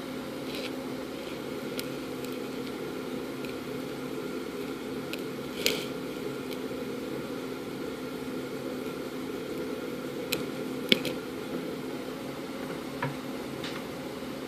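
Steady background hum with a constant low tone. A few light clicks and taps cross it, the sharpest about eleven seconds in.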